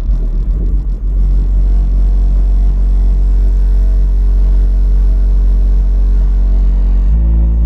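Two Rockford Fosgate P3 12-inch subwoofers in a ported box, driven by a T-1000 amplifier, playing bass-heavy music loudly, heard from outside the car. A deep, steady bass note dominates, and it shifts to a new note near the end.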